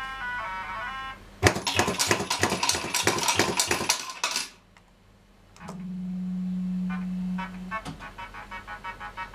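1981 MDM Super 2p Eachway Shuffle fruit machine in play: a run of stepped electronic beeps, then about three seconds of dense mechanical clicking and rattling. After a short pause comes a steady low buzz of about two seconds, then short beeps again near the end.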